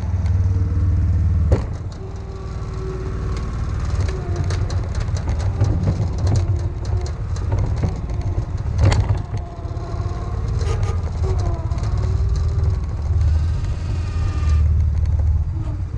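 Ready-mix concrete truck's diesel engine running steadily during a pour, with scattered scrapes and clicks and two sharp knocks, one about a second and a half in and another near the middle.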